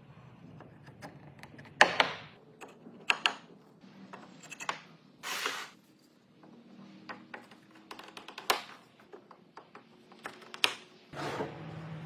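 Workshop handling sounds: a scatter of sharp knocks and clicks of tools and wood pieces against a bench, with a short rasping scrape about five seconds in and another near the end.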